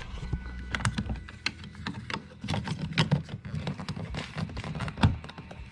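Irregular clicks and knocks of hard plastic car-door trim being handled and fitted, with one louder knock near the end.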